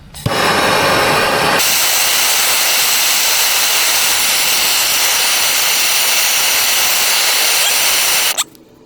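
Loud, steady hiss of rushing air that starts abruptly, sounding fuller for the first second and a half before settling into a bright hiss. It cuts out for about half a second near the end, then resumes.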